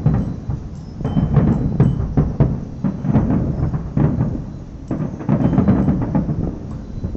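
Fireworks shells bursting: many deep booms with crackle in quick, uneven succession, coming in clusters with short lulls between.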